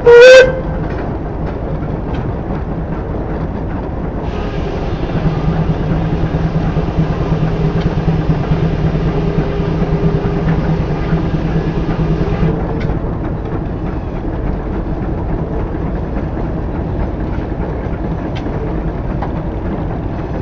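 Steam-powered sawmill running, its machinery giving a steady rumble. A steam whistle cuts off just as it starts. From about 4 to 12 seconds it gets louder, with a steady hum and a hiss over it, then eases back.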